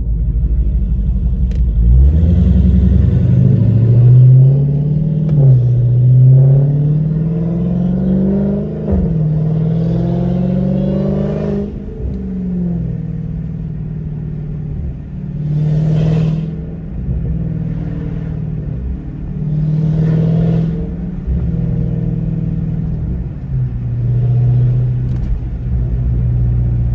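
Dodge Hellcat's supercharged 6.2-litre Hemi V8 breathing through gutted catalytic converters, pulling hard. The pitch climbs and drops back several times as it shifts up through the gears, then it settles to a steadier run with a few short swells of throttle.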